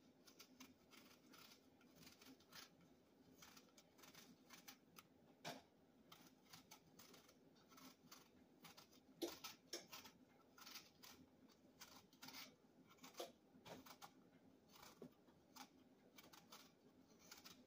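Small paring knife peeling an apple: faint, short cutting and scraping strokes through the skin at an uneven pace.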